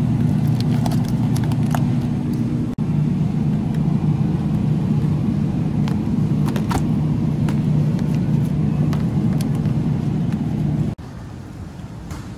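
Steady low hum of a refrigerated meat display case, with scattered clicks and crinkles of plastic-wrapped meat packages being handled.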